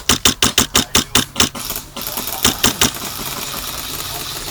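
Airsoft gun firing on full auto: a burst of about ten rapid shots, then after a short pause a quick burst of three, over a steady rushing noise.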